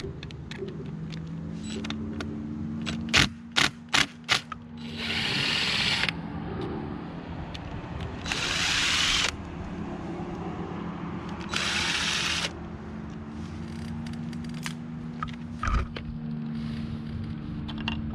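Power drill-driver running in three short bursts of about a second each, backing out the stator plate screws. A few sharp metallic clicks come just before the first burst.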